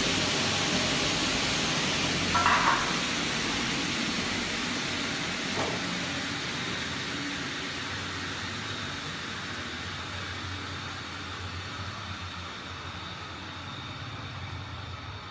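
A steady hiss that slowly fades, with a brief higher-pitched sound about two and a half seconds in.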